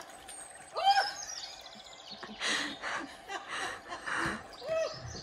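People laughing: a high voiced squeal about a second in, then several breathy bursts of laughter.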